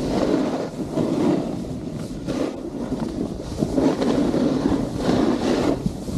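Snowboard sliding over groomed snow, its edge scraping as it rides, rising and falling in several swells, with wind buffeting the camera microphone.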